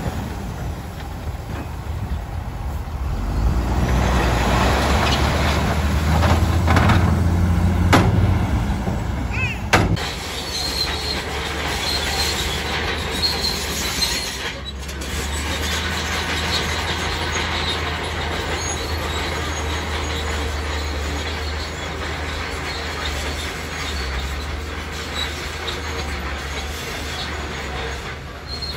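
Diesel dump truck running as it tips a load of broken rock, with the stones sliding and knocking out of the raised bed. About ten seconds in it gives way to a crawler bulldozer working at a distance: a steady low engine drone with repeated high squeals from its tracks as it pushes stone.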